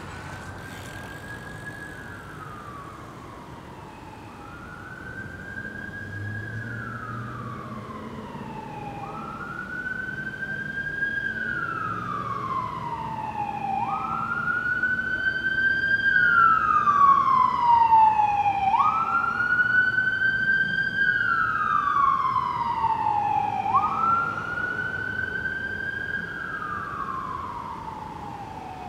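An emergency vehicle siren wailing, each slow sweep rising quickly, holding and then sliding down, about every five seconds. It grows louder toward the middle and fades near the end as it passes by.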